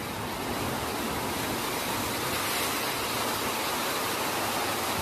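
Floodwater rushing in a steady, unbroken torrent.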